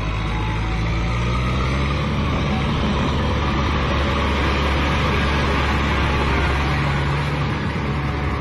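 Kubota M6040SU tractor's diesel engine running steadily under load as it drives through wet paddy mud with its rear rotary tiller.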